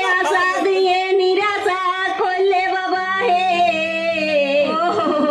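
A woman's voice singing long, wavering notes that slide up and down, with a steady low hum beneath.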